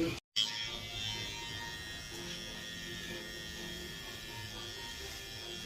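Electric hair clippers buzzing steadily and fairly quietly, with faint background music.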